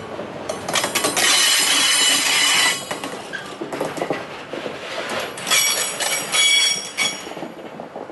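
Freight train wagons rolling past at close range, with the wheels screeching loudly in two bursts: about a second in, and again at around five and a half seconds. Between the bursts there is rattling over the rails, and the sound falls away near the end as the last wagon passes.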